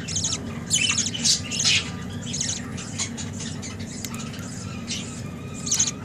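Budgerigars calling: a quick run of short, high calls in the first two seconds, then fainter ones, with another burst near the end.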